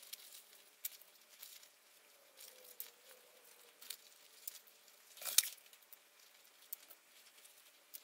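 Faint, scattered clicks and light taps of small plastic bearing parts being handled and set down in a plastic tub, with one louder tap about five seconds in.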